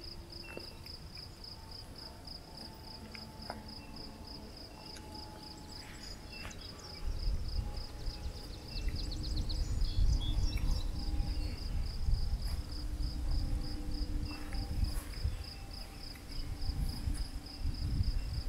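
Crickets chirping in a steady, even pulse, a few chirps a second. From about seven seconds in, a low rumble of wind on the microphone joins them.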